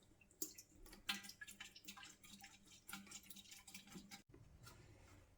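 Faint, irregular drips and small ticks: the last of the petrol dripping out of a lawnmower's fuel tank into a container after it has been tipped out.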